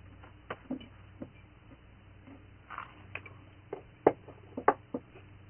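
Scattered light clicks and knocks of cutlery on plates as people eat, the sharpest about four seconds in.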